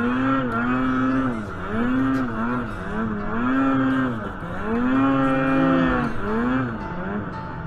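Snowmobile engine revving up and down again and again, its pitch rising and falling about once a second as the throttle is worked.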